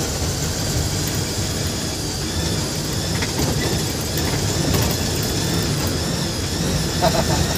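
Steady engine and road noise of a moving bus, heard from inside the cabin.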